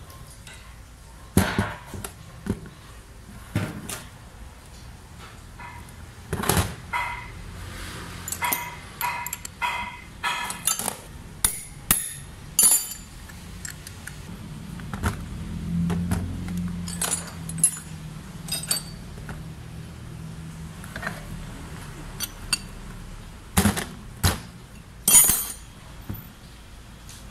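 Metal tools and parts clinking and knocking on a steel workbench while an Isuzu 4JA1 diesel injection pump is being worked on, with sharp ringing clinks scattered throughout. A low rumble rises and fades in the middle.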